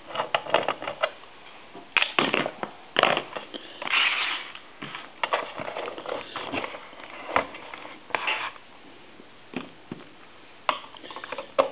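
A screwdriver working a screw out of a donut telephone's housing: scattered scratchy rasps and sharp clicks as the case is handled and turned.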